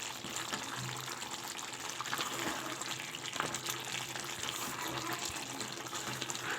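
Water running steadily, a continuous rushing and splashing.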